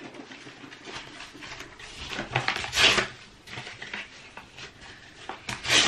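Rustling and soft handling noises of things being picked up and moved while a room is tidied, with two louder swishes, one about three seconds in and one near the end.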